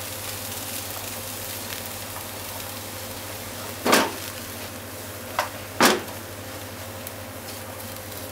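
Chopped green onion sizzling steadily in hot oil in a nonstick frying pan as it is stir-fried with cooking chopsticks. Three louder strokes of the chopsticks against the pan come about four, five and a half and six seconds in.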